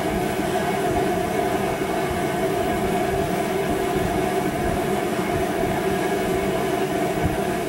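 Steady machine hum, a constant drone with several held tones that does not change.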